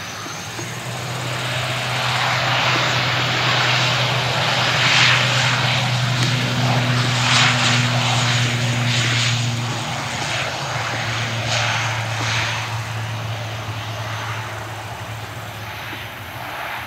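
ATR 72 twin-turboprop airliner at takeoff power on its takeoff roll: a steady low propeller hum under a rushing engine noise. The sound swells as the aircraft passes, then fades as it moves away down the runway.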